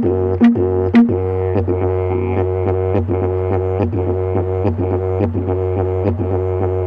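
Eucalyptus yellow box didgeridoo (yidaki) droning in F#, with sharp rhythmic accents about twice a second. Near the start two short higher toots break into the drone, which then runs on without a break.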